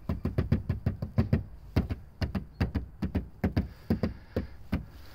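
Hand repeatedly tapping and knocking on Tesla Model S trim panels, a quick irregular series of short hollow knocks at about four a second, to find parts that rattle from loose clips and play in the fit.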